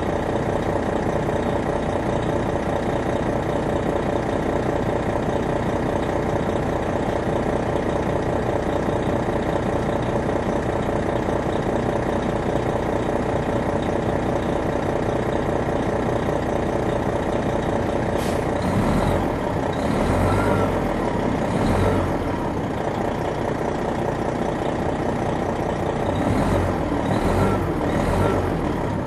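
Detroit Diesel Series 60 inline-six diesel of a 2001 MCI D4000 coach running at a steady, unchanging note, heard from inside the bus. About two-thirds of the way in, sharp noisy bursts with low thumps break in, first several in a row and then a second group near the end.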